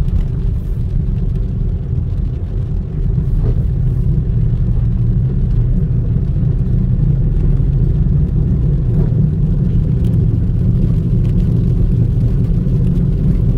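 Steady low rumble of a car driving on a rain-wet road, heard from inside the cabin, with a few faint ticks scattered through it.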